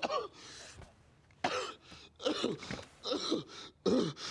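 A man gasping and groaning in distress: a breathy gasp, then a string of short, broken moans with falling pitch coming about every half second.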